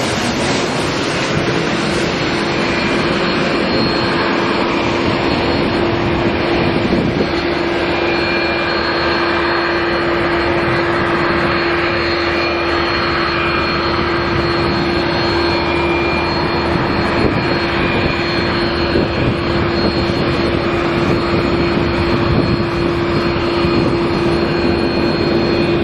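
Airbus A380's jet engines running: a loud, steady jet roar with a constant low hum and a thin high whine.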